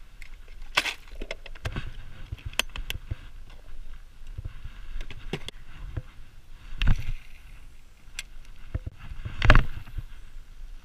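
Scattered clicks and knocks of fishing gear being handled in a boat: tackle box and spinning rod and reel. Two louder thumps come about seven and nine and a half seconds in.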